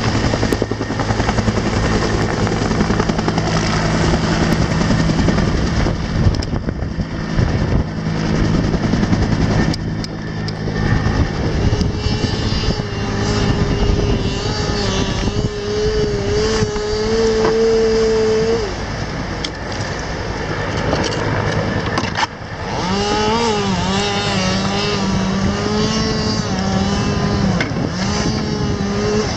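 Rescue helicopter running close by, its engine and rotor loud and steady, with a pitched engine tone that wavers up and down from partway through.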